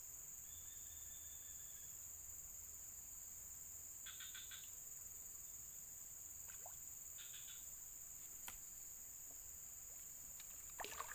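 Faint, steady high-pitched drone of insects such as crickets, with two short pulsed chirps about four and seven seconds in. Right at the end a sudden loud, noisy burst begins.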